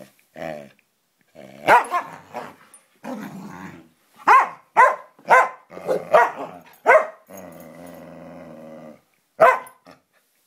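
A Samoyed and a Siberian Husky play-fighting: growls broken by sharp barks, with a quick run of barks between about four and seven seconds in, then a long steady growl. The growling and barking are friendly play, not aggression.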